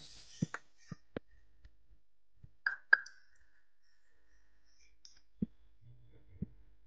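Quiet background broken by scattered short clicks and taps, about eight in all, the loudest two close together about three seconds in.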